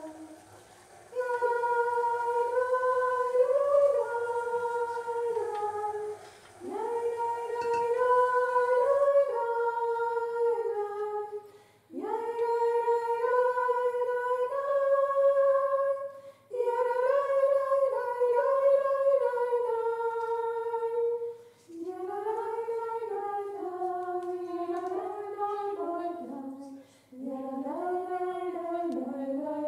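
A woman's voice singing a wordless melody solo, without accompaniment, in phrases of a few seconds with short pauses between them.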